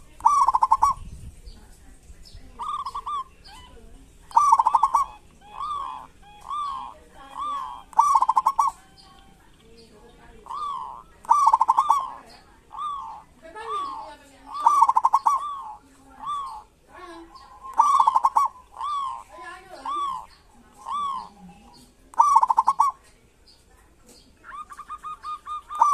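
Zebra dove (perkutut) calling: a run of short cooing notes, roughly one a second, each broken into a fast rattle, with a pause about ten seconds in and another near the end.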